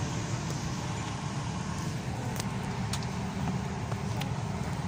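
Steady road and engine rumble heard from inside a moving car, with a few faint clicks in the second half.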